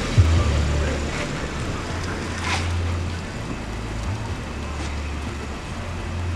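A car running, its low rumble mixed with wind buffeting the microphone.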